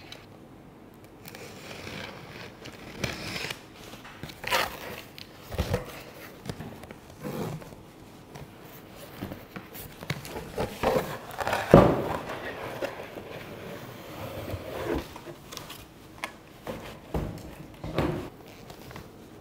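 A cardboard shipping carton being opened by hand: packing tape picked and peeled, flaps folded back and cardboard rustling and scraping, with scattered knocks as the boxes are handled. The loudest knock comes about twelve seconds in, and the inner boxed kit is set down near the end.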